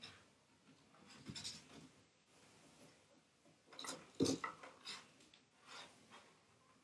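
Faint handling noises off camera: a few short rustles and light knocks, the loudest about four seconds in.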